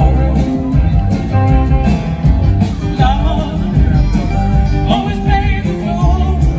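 A live band playing amplified music through a stage PA, with guitars, a steady rhythmic low end and a singer's voice carrying the melody.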